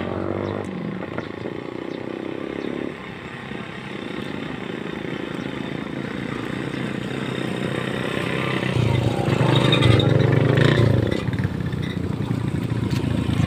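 An engine running steadily. It grows louder about nine seconds in, then eases back near the end.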